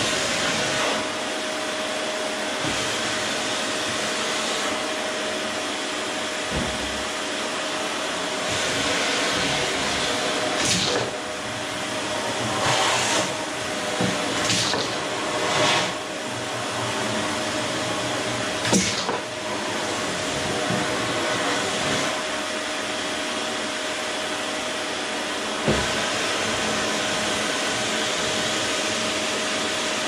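Electrolux canister vacuum cleaner running steadily, a constant airflow hiss with a steady motor whine. The suction sound briefly surges several times in the middle, with a few light knocks of the hose and nozzle.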